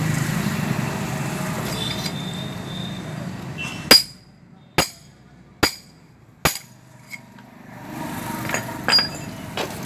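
Four sharp, ringing metal-on-metal hammer blows about a second apart, driving a 6203 ball bearing onto a pump motor's rotor shaft, with lighter taps near the end. A steady low rumble comes before the blows.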